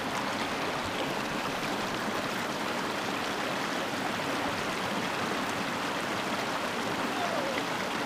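Shallow rocky creek running over stones in small rapids: a steady, even rush of water.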